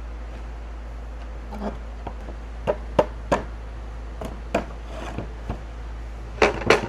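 Irregular wooden knocks and clunks, about ten of them, as the loose joints of an old wooden cabinet are worked apart; the loudest pair comes near the end. A steady low hum runs underneath.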